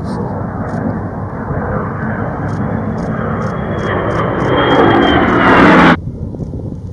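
Engine noise of a P-51 Mustang, an A-10 and an F-35 flying past together in formation. It builds steadily, with a faint high whine rising slowly in pitch, and is loudest just before it cuts off abruptly about six seconds in, leaving a much quieter, wind-like background.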